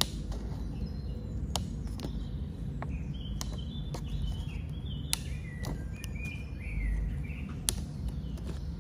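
Cable stripper's blades snipping through paper: a series of sharp snips, about eight, irregularly spaced. Birds chirp in the background.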